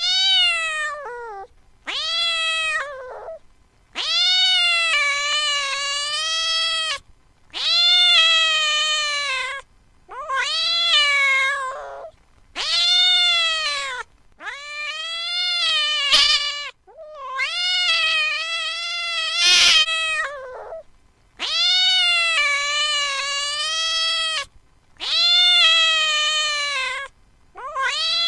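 A cat meowing over and over: a string of about ten long, drawn-out meows, each lasting one to three seconds with a short pause between. A couple of brief clicks come in the middle.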